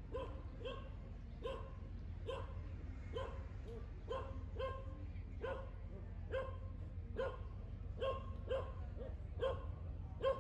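A dog barking over and over in short, pitched barks, about two a second and often in pairs, over a steady low rumble.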